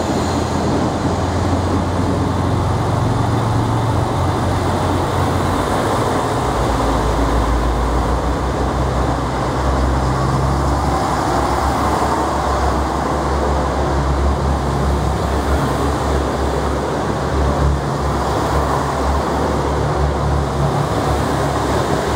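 JR Shikoku 2000 series diesel multiple unit pulling away from a platform, its diesel engines under load as the cars pass at low speed. A steady, loud, deep rumble whose pitch drops about six seconds in.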